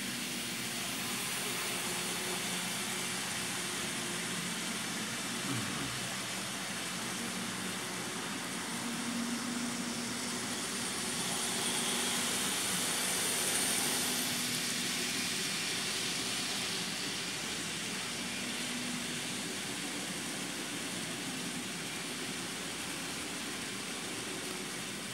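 Model train running on its layout track: a steady rolling rattle of small wheels on rail with a faint motor hum, getting louder as the locomotive passes close about halfway through.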